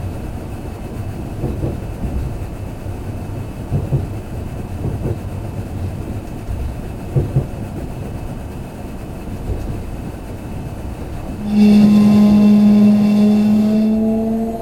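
Electric train running, heard from inside the car: a steady low rumble with occasional knocks from the rails. Near the end a loud electric motor whine sets in suddenly and slowly rises in pitch.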